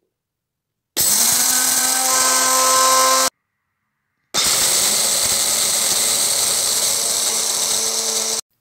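Small electric food chopper running in two bursts, one of about two seconds and one of about four, coarsely grinding toasted sesame seeds and almonds. Each burst has a steady motor whine and starts and stops suddenly.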